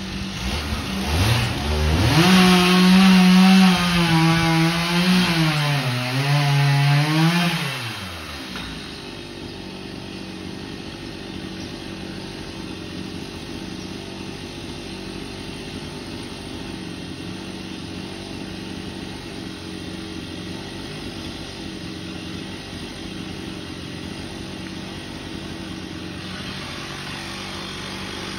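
A two-stroke chainsaw revs up and cuts into the fibrous trunk of a Washingtonia palm. Its pitch sags and recovers under load for about seven seconds, then it drops off. A steady, quieter engine hum carries on after it.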